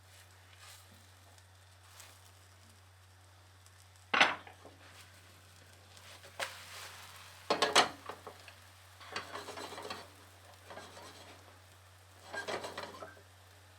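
A spatula scraping and knocking against a frying pan as a pancake is loosened and turned, with a faint sizzle. Sharp clacks come about four and eight seconds in, followed by two spells of scraping.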